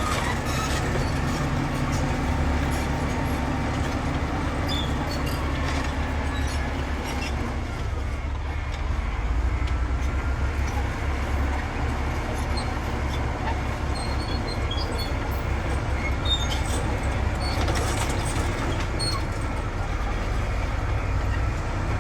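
Heavy diesel earthmoving machinery running steadily: a low engine rumble with scattered faint clicks and rattles.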